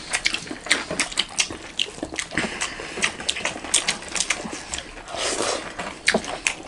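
Close-miked eating sounds: irregular wet clicks and squishes of hands mixing rice with daal, along with chewing and lip smacking.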